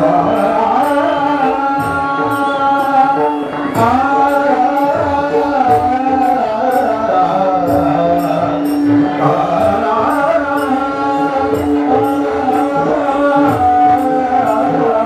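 A folk music group performing live: singing in a winding melody over a steady held drone note. Hand-drum strokes and an even, quick beat of metal jingling percussion play underneath.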